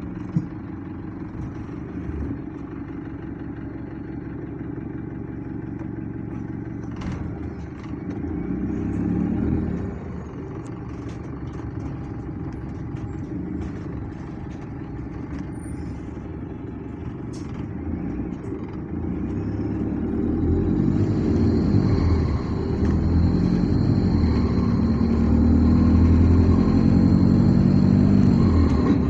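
Bus engine heard from inside the bus, running steadily while the bus moves. From about twenty seconds in it grows louder, with the revs rising and falling, and a thin high whine joins in.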